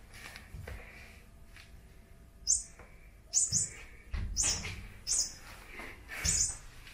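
Electronic squeaking toy mouse for cats giving short high-pitched chirping squeaks, about half a dozen in quick succession, set off as the cat grabs and bats it. A few dull thumps come among them.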